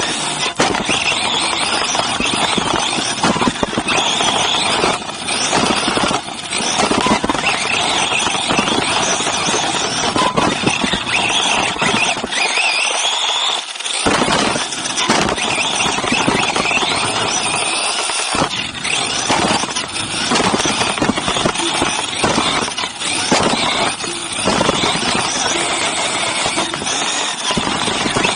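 Onboard sound of a Team Associated RC8B3.1 electric 1/8-scale RC buggy racing: a high drivetrain squeal over a steady rushing noise, with brief lulls about twelve and eighteen seconds in.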